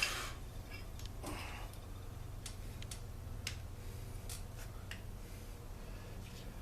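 A few light, scattered clicks and taps of small engine parts being handled on a workbench, over a steady low hum.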